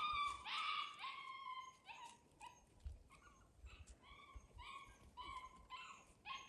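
Seven-week-old Labrador puppies whining and yipping in a string of about a dozen short, high cries, loudest in the first second or two.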